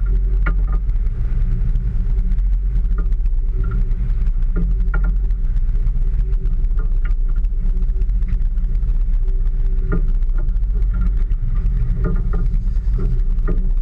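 Steady low rumble of a small fishing boat's engine idling, with scattered short clicks and knocks over it.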